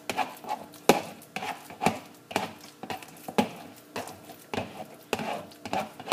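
Wire potato masher mashing a banana in a plastic mixing bowl, knocking on the bowl's bottom about twice a second; the strongest knock comes about a second in.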